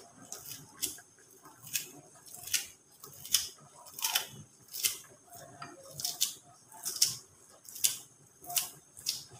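Kitchen scissors cutting turmeric leaves, a sharp snip about every three quarters of a second, a dozen or so in a row.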